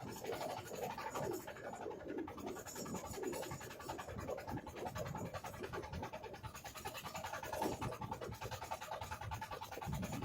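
Fishing net being paid out over the side of a small fishing boat: continuous scraping and rustling.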